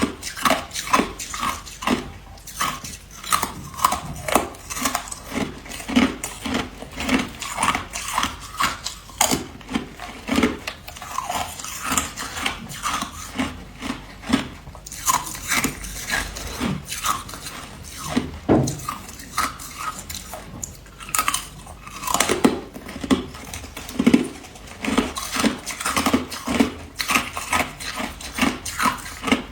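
Ice being bitten and chewed close to the microphone: a steady run of sharp crunches, about two or three a second.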